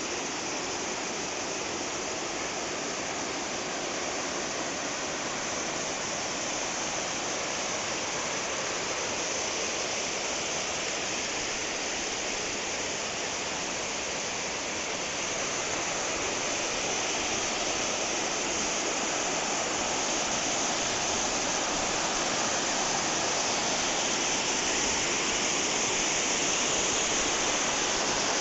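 Steady rush of water from a mountain stream cascading over rocks, growing slightly louder in the second half.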